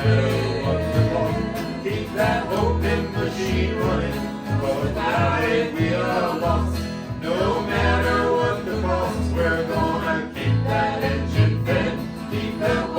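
Country/bluegrass-style acoustic band music without lyrics: plucked guitars over a stepping bass line.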